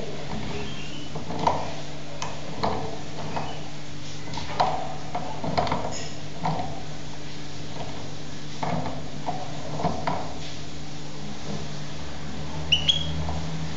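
Irregular light taps and knocks over a steady low hum, with a few short high chirps from a young goldfinch near the end.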